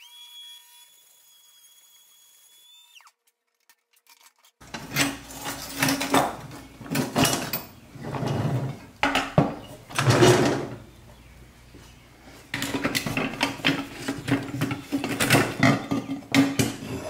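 Metal parts of a vintage Tonka cement mixer toy being handled and pulled apart on a workbench: irregular scraping, clattering and knocks of pressed steel on the bench. A short steady ringing tone with several pitches comes before it, and a steady low hum runs under the later handling.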